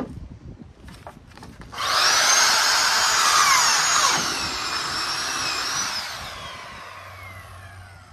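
Handheld power saw starting about two seconds in and cutting into a plastic shed panel, its whine dipping in pitch under the load, then spinning down with a falling whine as the blade coasts to a stop.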